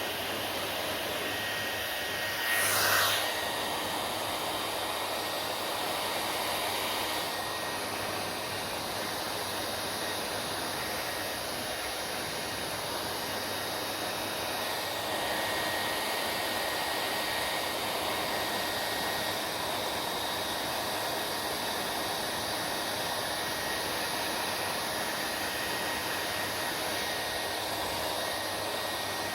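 Hair dryer running steadily, an even rush of air with a faint high whine, briefly louder about three seconds in.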